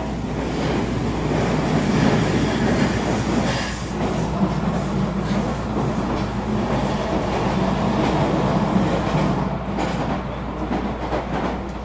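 HO scale model freight train led by a model EMD GP38-2 diesel running along the layout track: steady running noise of the locomotive's motor and the cars' wheels on the rails.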